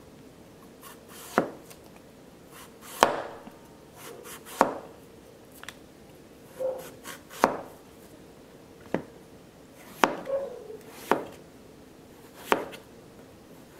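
Chef's knife slicing lengthwise through a zucchini and knocking down onto a plastic cutting board, about eight separate cuts a second or so apart.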